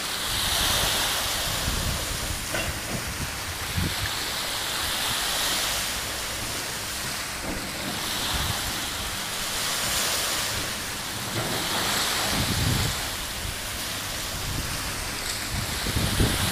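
Small waves washing onto a sandy beach: a steady hiss that swells and fades about every four seconds. Low wind buffeting on the microphone rumbles underneath.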